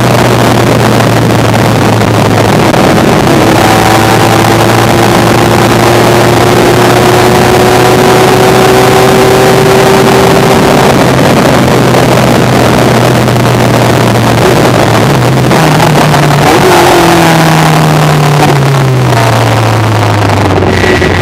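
Elan NP01 prototype race car's engine heard from the cockpit, held at a steady high note under a heavy rush of wind and road noise. About fifteen seconds in the revs step and fall as the car shifts down and slows, settling to a lower steady note near the end.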